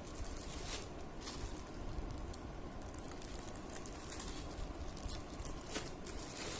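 Soft rustling and handling noise over a steady background hiss, with a few brief crackles.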